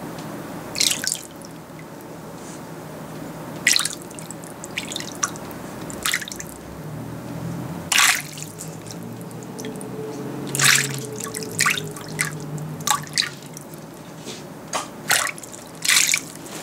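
Short, irregular splashes of water in a shallow plastic tub as a spotted puffer thrashes in clove-oil-dosed water, coming more often in the second half.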